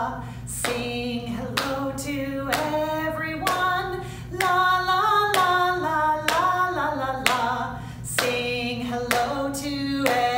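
A woman sings a simple children's hello song unaccompanied on a "la la la" tune. Sharp hand claps fall on the beat about once a second.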